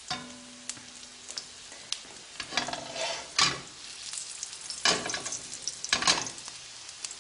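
Breadcrumb-coated tilapia fillet sizzling in hot olive oil in a skillet: a steady hiss with scattered crackles, and louder spits in the second half. A brief ringing tone sounds about a second in.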